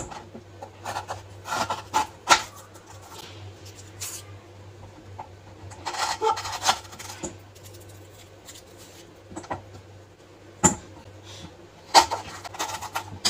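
Kitchen knife cutting and scraping palmyra sprouts on a wooden cutting board: irregular short scrapes and knocks of the blade on the board, coming in little clusters, over a faint steady low hum.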